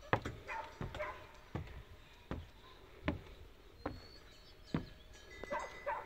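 Footsteps climbing wooden stairs, a dull thud about every three-quarters of a second. A dog barks a few times near the start and again near the end.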